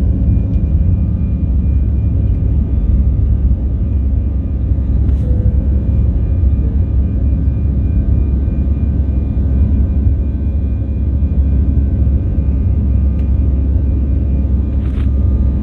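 Cabin noise inside an Airbus A319 jet airliner around takeoff: a loud, steady low rumble of engines and airflow with faint steady hums above it. Two faint clicks, one about five seconds in and one near the end.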